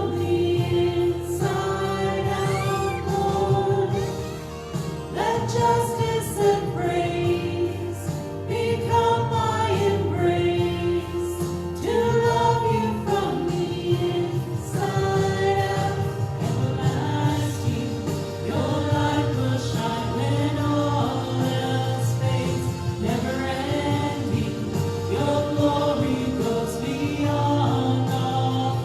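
Contemporary worship song with group singing over instrumental accompaniment.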